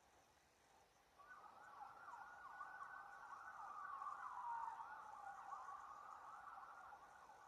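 Faint emergency-vehicle siren, its pitch sweeping up and down. It comes in about a second in, swells, then slowly fades.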